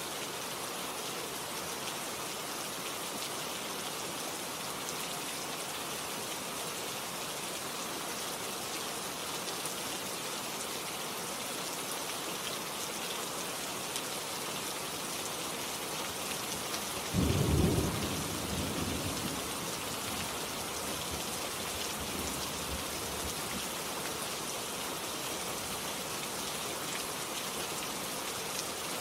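Steady rain falling, with one rumble of thunder a little over halfway through that dies away over a few seconds.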